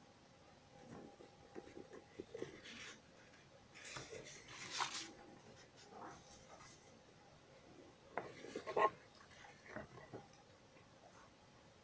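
Faint rubbing and scraping handling noises, with two louder scrapes about four to five seconds in and again about eight to nine seconds in.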